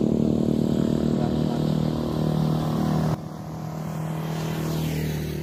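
A small engine running steadily, dropping away abruptly about three seconds in, with a faint rising whine near the end.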